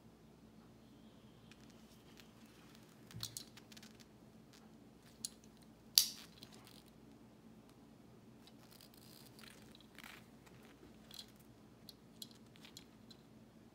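Faint clicks and scrapes of a small diecast model car being handled and turned in the fingers, with one sharp click about six seconds in and a few more light clicks and rubbing scrapes scattered through.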